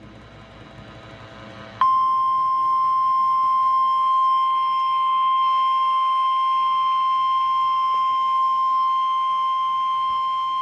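NOAA Weather Radio's 1050 Hz warning alarm tone, which signals that a watch or warning message is about to be read. It is one steady high beep that starts suddenly about two seconds in and is held for about nine seconds, heard through a weather radio receiver after a couple of seconds of faint static.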